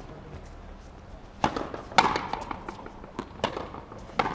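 Rally of frontenis: the hard rubber ball cracks off the players' rackets and slaps against the fronton wall, several sharp hits with a short echo, the loudest about two seconds in.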